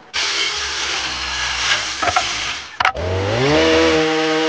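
Chainsaw running loud. A little under three seconds in it drops out for a moment, then revs up and holds at a steady high-speed whine.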